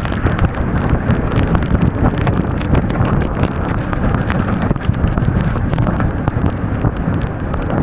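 Wind buffeting the microphone on an open boat under way, a loud, dense, steady rumble with many small sharp ticks scattered through it.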